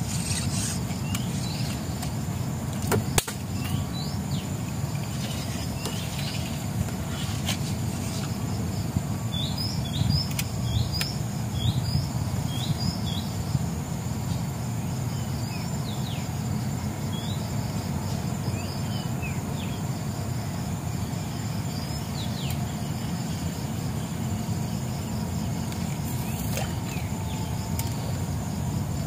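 A steady high insect drone with short bird chirps scattered through it, a quick run of them near the middle, over a constant low rumble; one sharp click a few seconds in.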